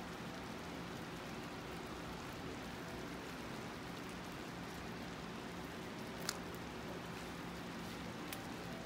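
Blended bean sauce simmering in a stainless-steel pan, a steady, soft bubbling patter, with two light clicks in the second half.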